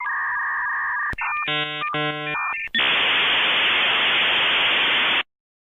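Dial-up modem connecting: steady tones, a click, a run of warbling handshake tones, then a long even screeching hiss that cuts off abruptly.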